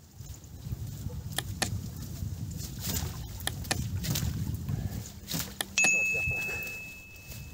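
Low, steady wind rumble on the microphone out on the river, with a few sharp clicks. About six seconds in comes a single bright bell-like ding that fades out over about two seconds: the sound effect of an animated subscribe-and-bell overlay.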